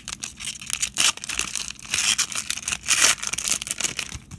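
Plastic-foil wrapper of a trading card pack being torn open and crinkled by hand, in irregular crackling bursts with louder tears about one, two and three seconds in.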